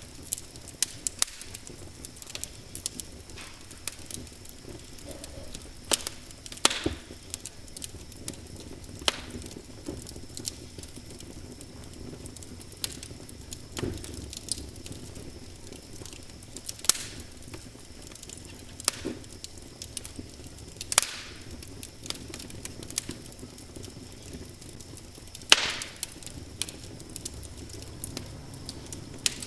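Wood fire crackling in a fireplace, with irregular sharp pops and snaps over a soft steady hiss. One loud pop comes late on.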